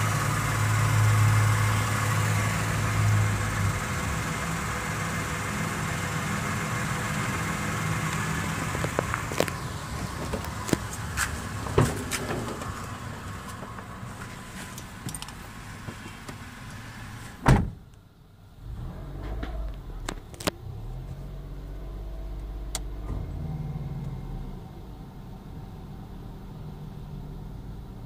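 Small car's engine idling, heard close up at the front wheel well and then muffled from inside the cabin. Handling knocks come first, then a car door shuts with one loud thump partway through.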